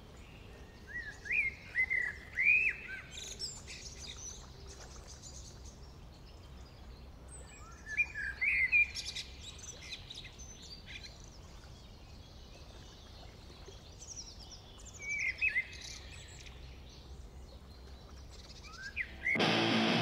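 Birds singing in three short bursts of quick chirping, gliding notes, over a faint, low, steady background noise. Near the end, loud rock music with distorted electric guitar cuts in suddenly.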